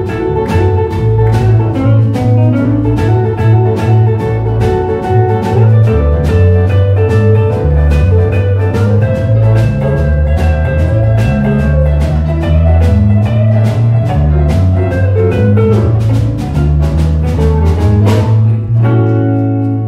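Instrumental music: hollow-body electric guitar playing chords and melody over a steady beat and a moving bass line. Near the end the beat stops and a final chord is left ringing.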